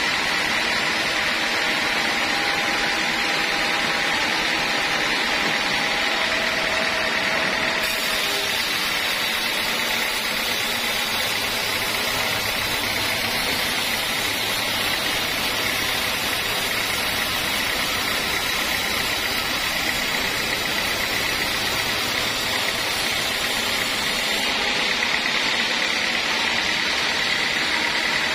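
Band sawmill blade running and cutting lengthwise through a large timber beam: a steady whine and hiss that grows brighter from about a third of the way in until near the end.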